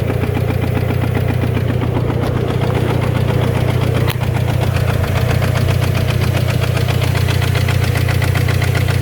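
2006 Chevy Cobalt's four-cylinder engine running with a fast, steady knocking, the sign of a worn-out engine at 300,000 miles that the owner says needs a rebuild or replacement. A brief click about four seconds in.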